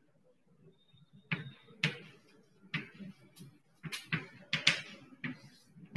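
Chalk writing on a blackboard: a string of about ten sharp, irregular taps and short scratches as the chalk strikes and drags across the board.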